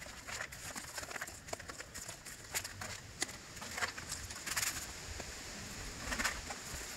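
River rocks being handled and set onto expanding-foam sealant around a waterfall, making irregular knocks and clacks of stone.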